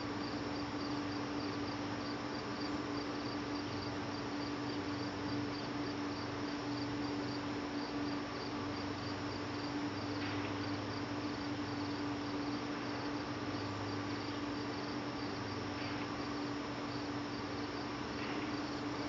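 Insect chirping: an even, unbroken run of high chirps over a constant hiss and a low steady hum.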